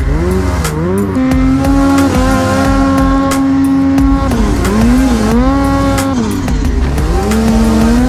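Two-stroke mountain snowmobile engine revving up and down as the sled rides through deep powder, its pitch swooping down and back up several times and held steady at high revs for a few seconds in the middle. Music plays underneath.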